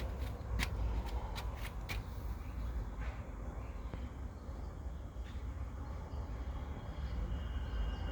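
Outdoor ambience: a steady low rumble with four or five sharp clicks in the first two seconds.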